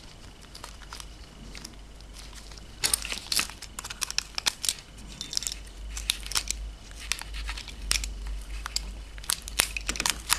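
Plastic being handled by hand: crinkling and a scattering of small clicks and snaps, in short clusters several seconds apart, as RAM modules and their packaging are worked with.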